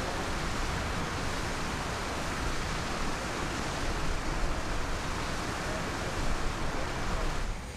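Steady outdoor rushing noise with a low rumble, like wind or running water, and no clear single event in it.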